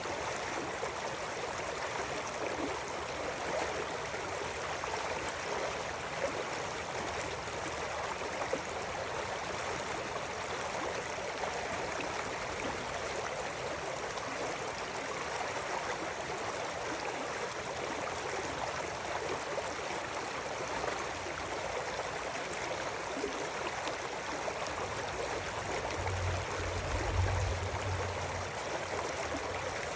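River water flowing steadily, an even rushing and gurgling. A brief low rumble comes in near the end.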